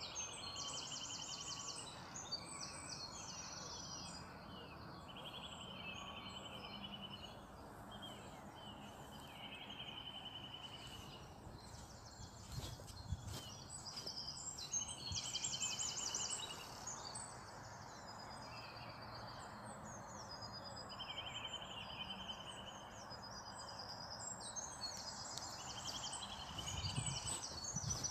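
Songbirds singing short repeated trilling phrases, one after another, over a steady rushing background. A few low thumps come near the end.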